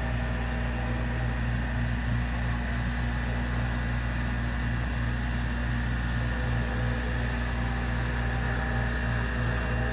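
A steady low mechanical hum with a faint high tone above it.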